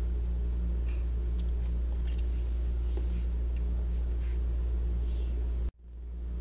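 Steady low hum and faint hiss of the recording's background noise, with a few faint clicks. Near the end it cuts out suddenly and fades back in.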